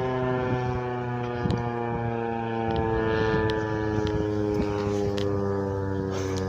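American Signal T-128 rotating electromechanical outdoor warning siren sounding its steady alert tone at close range, a loud chord that drifts slightly lower in pitch.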